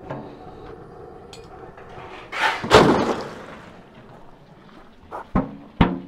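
A sealed, steam-filled steel drum dropped into a pool of ice water: a loud splash and hollow metal clatter about two and a half seconds in, then a few sharp knocks near the end.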